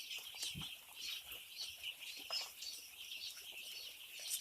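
A flock of five-day-old chicks peeping all together, a dense, continuous chorus of short high chirps.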